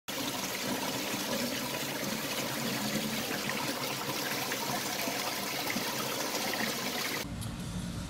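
Steady rush of water in a live-fish holding tank, the aerated, circulating water running continuously; it cuts off suddenly about seven seconds in.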